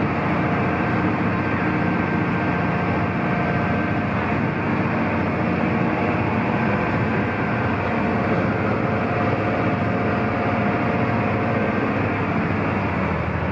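Sightseeing boat under way, heard from inside its cabin: a steady engine drone over the rush of water and spray along the hull.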